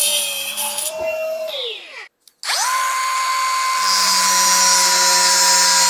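Angle grinder with a thin cut-off disc cutting steel. Its whine falls away as the motor winds down. After a brief break it spins back up to a steady high whine, and a few seconds later bites into a rusty steel plate with a harsh hiss of grinding metal.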